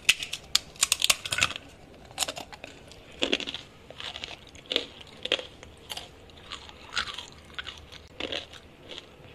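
Someone biting into a crisp baked sorghum and finger-millet taco shell, with a quick run of sharp cracks in the first second and a half, then chewing it with irregular crunches.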